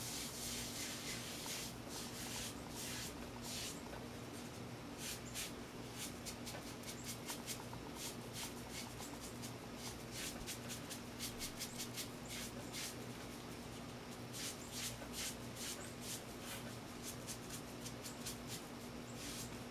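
Sponge rubbing over unfired ceramic greenware in quick, irregular, scratchy strokes as the piece is cleaned, with a faint steady hum underneath.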